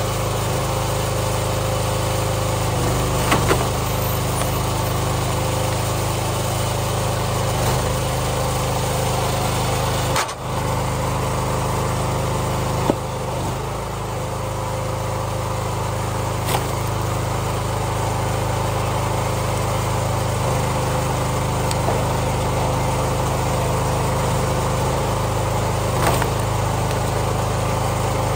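Gas engine of a hydraulic log splitter running steadily, its note shifting slightly as the ram is worked, with a few sharp cracks and knocks as rounds of wood split against the wedge.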